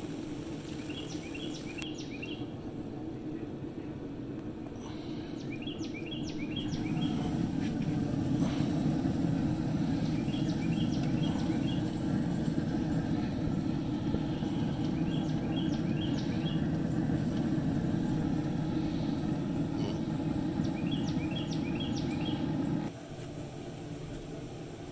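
A steady low rumble, louder through the middle and dropping off sharply near the end, with a songbird singing a short phrase of about four quick notes, five times at intervals of four to five seconds.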